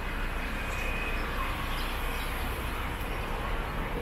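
Steady street ambience: an even hum of distant traffic, with no single nearby sound standing out.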